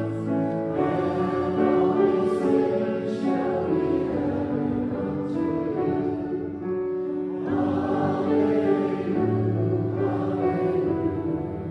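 Group of voices singing a slow hymn in long, sustained notes over a low held instrumental note.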